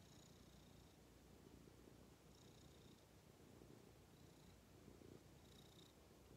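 Domestic cat purring contentedly: a faint, low, steady rumble.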